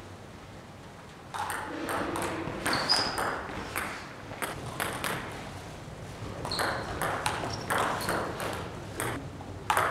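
Table tennis ball clicking against the table and rackets at an irregular pace, starting about a second and a half in, with a couple of short high squeaks in between.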